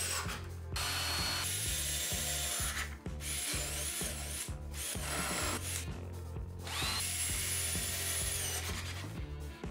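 Cordless drill-driver driving screws into plywood, running in several runs with short pauses between them.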